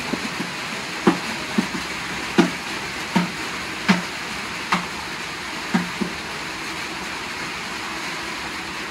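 Steady hiss of rain, with about eight short knocks spread over the first six seconds as a large knife chops into a piece of raw pork held in the hand.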